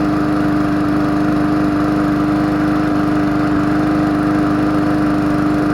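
Gas lawn mower engine running at a steady, even speed.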